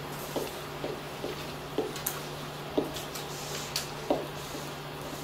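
Marker writing on a whiteboard: a string of short squeaks and taps, one stroke about every half second, over a steady low hum.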